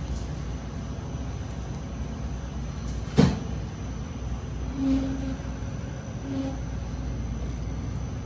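A sharp knock over a steady low hum, followed by two short low tones, one about five seconds in and one about six and a half seconds in.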